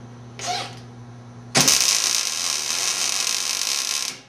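MIG welder arc crackling as a weld bead is laid on steel. It starts abruptly about one and a half seconds in, runs for about two and a half seconds and cuts off near the end, over the steady low hum of the welder.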